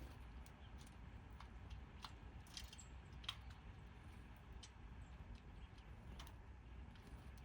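Faint, irregular short clicks and ticks, the sharpest about three seconds in, over a low steady rumble.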